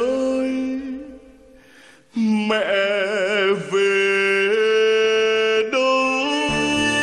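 Male singer's voice in the slow closing phrases of a Vietnamese ballad, long held notes with vibrato and almost no accompaniment, with a brief pause about two seconds in. The instrumental accompaniment comes back in near the end.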